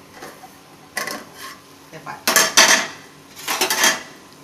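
Metal cookware clattering: an aluminium pot lid is lifted off and set down on the gas stove, and a steel ladle clinks. There is one light clink about a second in, then two louder rattling clatters in the second half.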